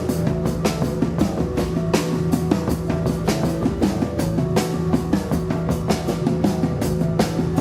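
Live rock band playing: a steady, fast drum-kit beat under held droning notes.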